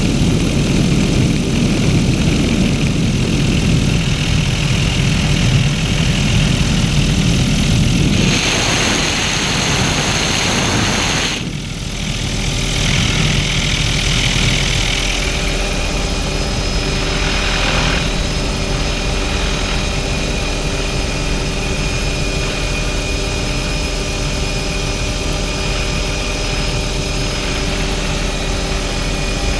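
Helicopter in flight heard from inside the open-doored cabin: steady engine and rotor noise with wind rushing in through the doorway. The wind hiss grows louder for a few seconds about a third of the way in.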